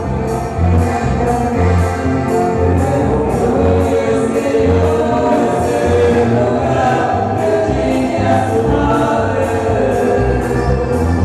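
Band music with singing and a steady, regular bass beat.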